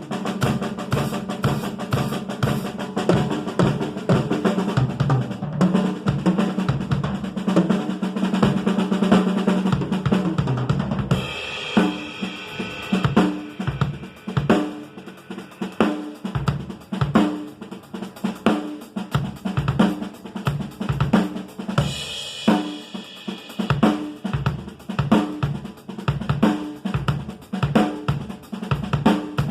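A Pearl Export EXL acoustic drum kit being played. It opens with busy, rapid fills and rolls, then settles into a steady beat on snare, bass drum and hi-hat. A cymbal crash marks the change, and there is another crash later.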